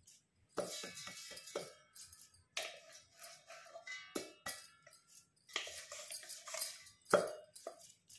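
Coarsely ground spice mix being shaken and tapped out of a steel container into a steel bowl of chopped green chillies: a rattling pour broken by sharp metal clinks and knocks, some with a brief ringing of the steel.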